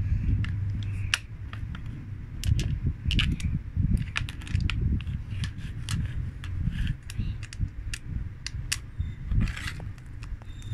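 Small magnetic balls clicking and snapping together as they are handled, an irregular run of sharp little clicks over low handling rumble.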